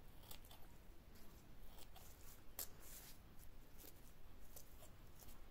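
Scissors snipping through tulle netting: a scattering of faint, crisp snips, the loudest about two and a half seconds in.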